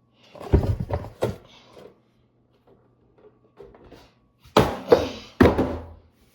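Hard knocks and thuds of a box being struck with 3D-printed brass knuckles: a cluster of blows about half a second in, then another burst of knocks around four and a half to five and a half seconds in.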